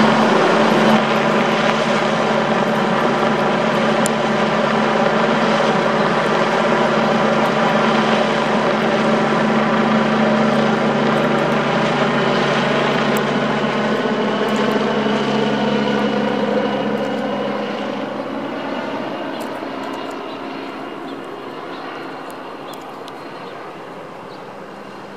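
Helicopter flying overhead, its rotor and engine running with a steady pitched drone, then fading over the last several seconds as it flies off.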